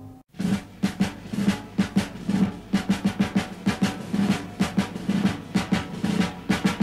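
Instrumental drum break in a band recording: a quick, busy run of snare hits over low tom beats, starting after a brief silence at the very beginning.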